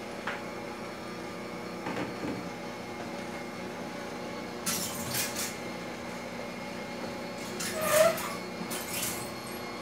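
A kitchen utensil scraping and knocking inside a stainless steel saucepan of potatoes during mashing, in a few short bursts with the loudest about eight seconds in, over a steady background hum.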